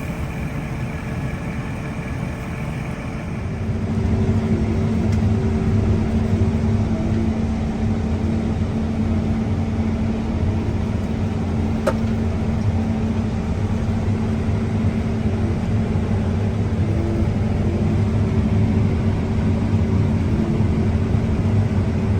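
Combine harvester running with a steady mechanical drone that grows louder about three seconds in, then holds steady.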